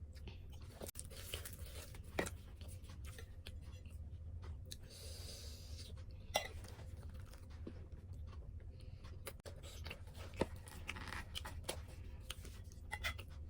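Close-miked eating sounds of a person chewing puri and potato curry, with a few sharp clicks spread through.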